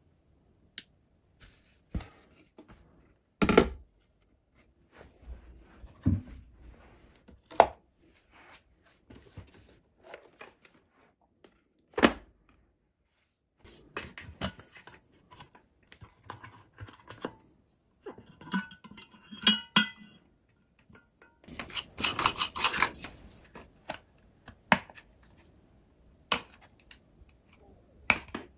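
Hand disassembly of an IKEA Fado lamp: sharp clicks, knocks and scrapes as its glass globe shade and plastic bulb holder are handled and a screwdriver is worked on the holder. A longer burst of clattering comes about three-quarters through.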